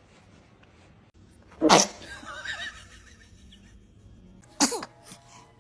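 A baby sneezing twice, two short sharp sneezes about three seconds apart.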